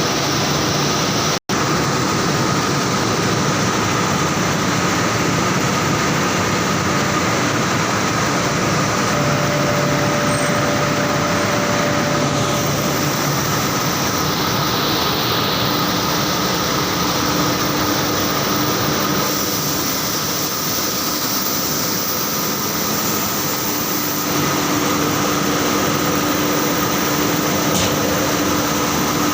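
Saurer JSC 330 textile carding machine running: a loud, steady, dense mechanical whir with a faint constant whine in it. The sound cuts out for an instant about a second and a half in.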